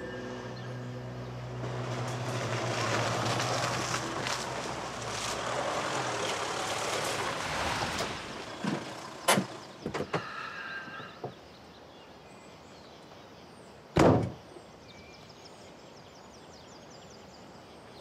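A pickup truck drives up and comes to a stop, its engine and tyre noise steady for the first several seconds and then dying away. A few short knocks and clicks follow, then a single loud car-door slam a few seconds before the end.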